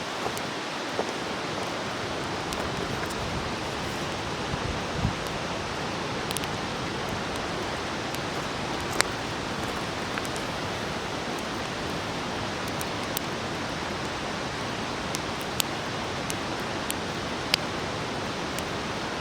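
Wood campfire burning: a steady hiss with scattered sharp pops and crackles, about eight in all, the loudest about halfway through.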